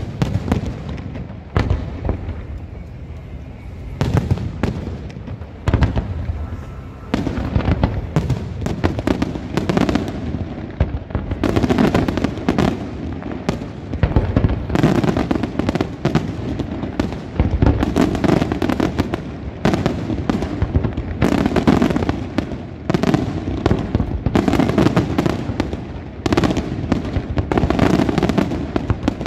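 Senatore Fireworks display: aerial shells and rising fans of stars going off with sharp bangs. Spaced out at first, it becomes a dense, almost continuous barrage of bangs and crackle from about seven seconds in.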